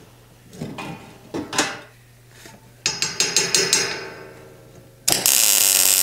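Steel clanking as a bar is set in place, then a quick run of about seven ringing metal-on-metal taps. About five seconds in, a welding arc strikes and crackles steadily in a short weld on the steel rack.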